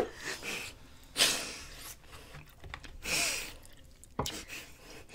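Two breathy exhalations close to the microphone, one about a second in and one about three seconds in, with a faint click a little after four seconds.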